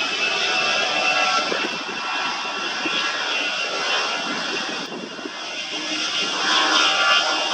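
Jet engines of an easyJet Airbus A320-family airliner running at high power on the runway: a loud rush of jet noise with a steady high whine, growing louder near the end.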